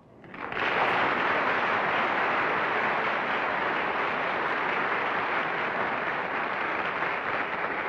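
Studio audience applauding, starting about half a second in and keeping up an even, steady clapping.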